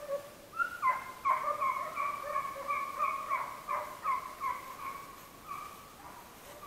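Hunting dogs giving a rapid run of high-pitched yelps, about three a second, that dies away after about five seconds.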